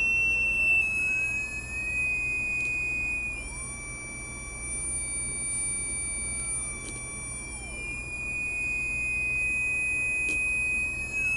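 Homemade 555-timer sound-effects generator circuit giving a shrill, steady electronic tone. Its pitch slides a little lower about three seconds in, holds, then climbs back up near the end as the range potentiometer is turned.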